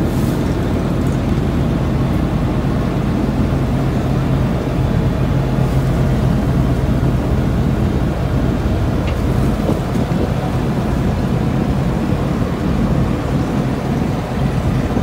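Motor boat's engine running steadily, a constant low drone heard from inside the wheelhouse.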